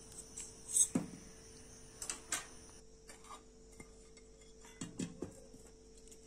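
A stainless steel bowl and a ceramic plate knocking and clinking lightly a few times as they are handled, the strongest knocks about a second in, about two seconds in and about five seconds in.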